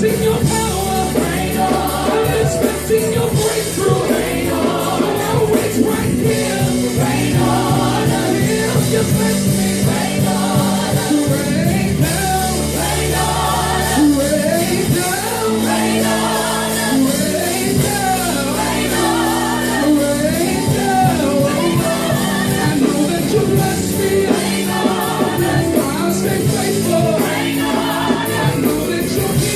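Gospel song: wavering, ad-lib-style singing over band accompaniment with held bass notes.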